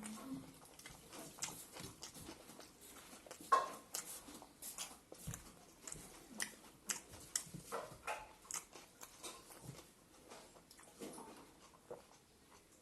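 Close-up eating sounds from a meal of rice, greens, buffalo meat and pickle: irregular chewing and mouth smacks, with a louder click about three and a half seconds in.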